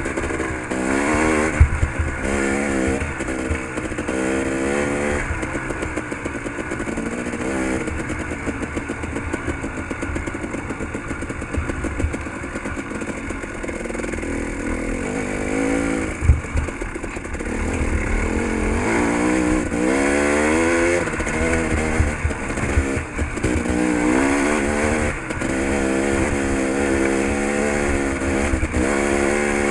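Dirt bike engine revving up and down over and over as it is ridden through changes of throttle and gear, with a few sharp knocks and clatter.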